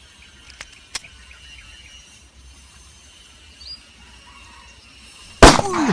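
Quiet outdoor background with a couple of faint clicks and a short bird chirp, then about five and a half seconds in a single sudden, very loud bang with a short fading tail: the finger gun's 'shot'.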